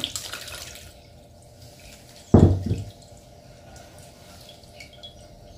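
Fermented blackberry liquid pouring through a sieve, trailing off within the first second into faint drips. About two seconds in there is a brief, loud, low sound that falls in pitch.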